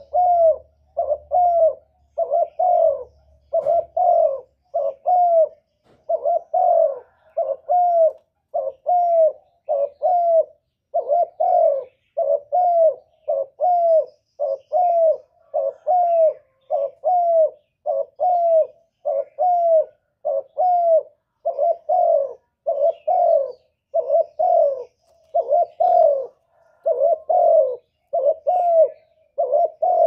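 Spotted dove cooing: an unbroken, evenly paced run of short low coos, about three every two seconds.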